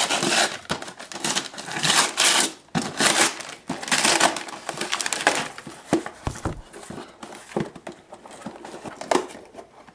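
Wrapping paper being torn and crumpled off a gift-wrapped cardboard box, a run of loud rustling and tearing, then quieter scattered taps and knocks as the box itself is handled.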